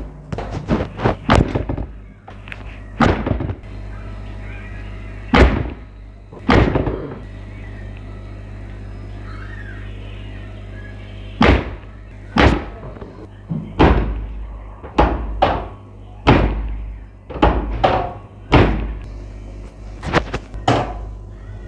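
Repeated sharp thumps and slaps of hands thrusting and striking on a patient's back during a chiropractic spinal adjustment. They come in irregular runs: a quick cluster at the start, a few spaced strikes, then a faster series through the second half.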